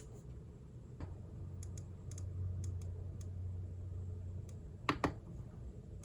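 Keys of the RK Royal Kludge S98 mechanical keyboard clicking: a few light, scattered key presses, then two louder clicks in quick succession near the end, over a low hum.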